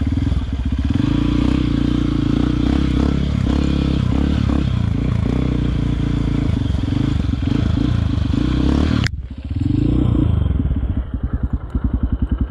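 Honda CRF dirt bike's single-cylinder engine running. About nine seconds in the sound breaks off sharply and dips, then comes back as an even idle putter.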